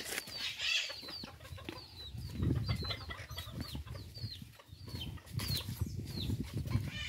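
Birds chirping: short, high, falling notes repeated two or three times a second, over low rustling and scuffing as someone walks.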